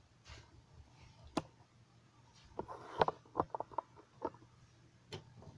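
Camera-handling noise: scattered light clicks and taps, a quick cluster of them about three seconds in, over a faint low hum. The sewing machine is not running.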